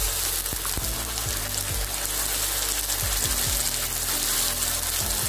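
Ginger-garlic paste sizzling as it hits hot mustard oil with browned onions in a kadai, a steady crackling fry.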